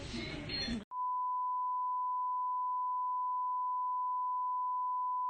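A single steady electronic beep tone at one pitch, edited into the soundtrack like a censor bleep, starting about a second in after a brief stretch of room noise and holding unchanged.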